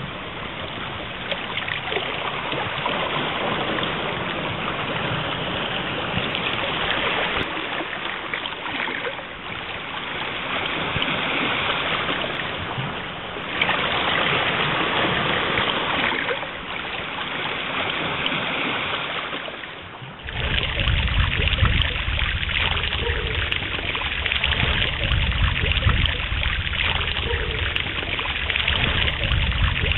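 Steady rushing ambient noise with no clear tones, which changes abruptly several times, as if cut between different recordings; from about two-thirds of the way in, a loud low rumble joins it.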